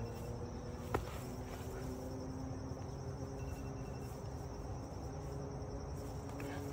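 A single sharp smack about a second in, a boxing-glove punch landing in sparring, over a steady low hum with faint insect chirping.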